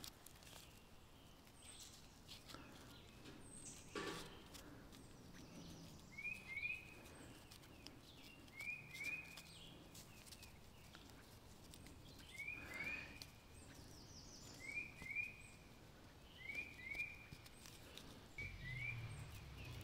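A bird calling faintly in the background: a short rising two-note chirp, repeated about every two to three seconds, with a couple of faint knocks in between.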